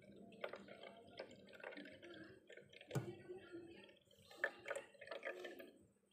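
Leftover water dripping irregularly from a front-loading washing machine's small drain hose into a glass jar as the drain runs nearly dry, with a couple of louder drops around the middle.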